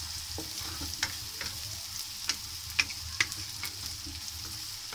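Sliced onions sizzling steadily in hot oil in a kadhai as they are half-fried, stirred with a wooden spoon that knocks against the pan about seven times.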